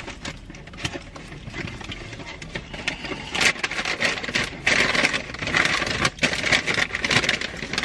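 Paper food packaging crinkling and rustling as it is handled, light scattered crackles at first, then louder and busier from about three seconds in.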